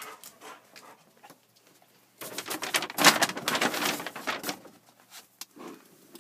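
Plastic storage containers and packaging being moved around on a pantry shelf: rustling and clattering that starts about two seconds in and dies down near the end.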